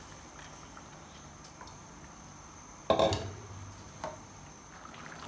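Soaked rice poured into a pot of simmering chicken stock, with faint bubbling and sloshing, then a sudden clunk of a utensil against the pot about three seconds in and a lighter knock a second later.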